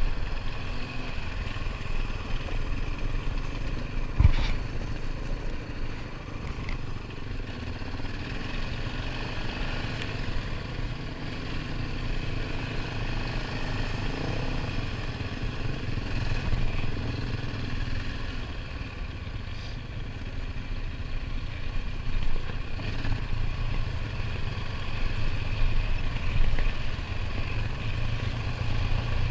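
ATV engine running steadily while riding, with a sharp knock about four seconds in.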